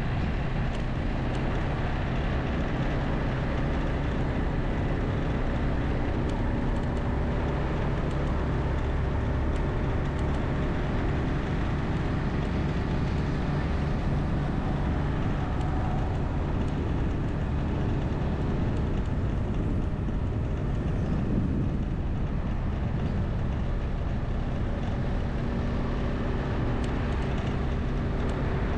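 Vehicle engine running steadily on the move, under a haze of wind and road noise. Its note shifts a little about two-thirds of the way through.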